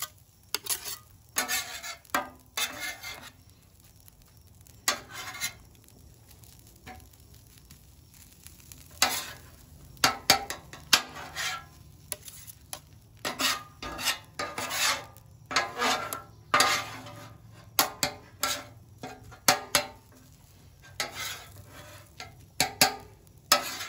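Metal bench scraper and spatula scraping and clacking on a steel flat-top griddle, tossing and chopping fried rice, over a faint sizzle. The strokes come irregularly, several a second at times, with a lull of about five seconds shortly after the start.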